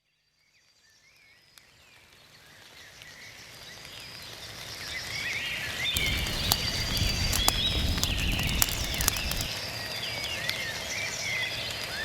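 Many birds chirping and calling over outdoor ambience, fading in from silence; sharp clicks and a low rumble come through in the middle.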